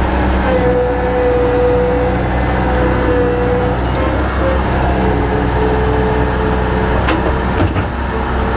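Engine-driven machinery running steadily with a constant whine that shifts slightly in pitch a few times, and a few sharp clicks about seven seconds in.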